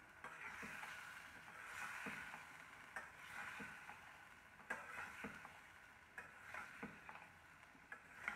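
A metal spoon stirring and scraping cubed eggplant and potato in a pan, with scattered clinks against the pan over a faint sizzle of frying.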